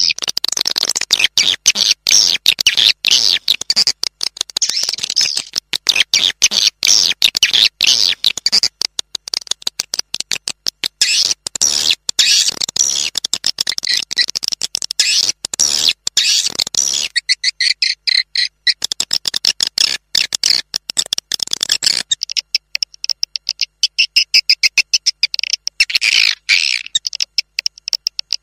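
A recording of swiftlet calls: dense, rapid, high-pitched chirping and twittering, of the kind played as a lure to draw swiftlets into a nesting house. For a few seconds past the middle the sound thins to a cleaner, higher chirping before the fuller twittering returns.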